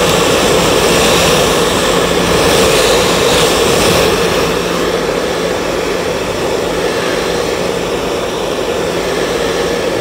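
Handheld Kemei blow dryer running steadily, its airflow rushing over a freshly washed laptop motherboard to evaporate the leftover cleaning liquid. The hiss eases a little about four seconds in.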